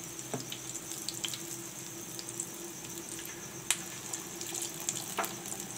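Besan pakoras deep-frying in hot oil: a steady bubbling sizzle with scattered small crackles and pops, one sharper pop a little past halfway.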